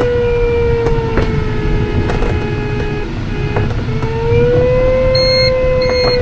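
A glider's audio variometer sounds a continuous tone that wavers in pitch, dipping around the middle and rising again, over the rush of airflow in the cockpit. From about five seconds in, a string of short, high beeps joins it.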